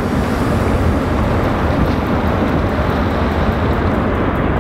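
A boat under way on open water: a steady low rumble with rushing water and wind noise.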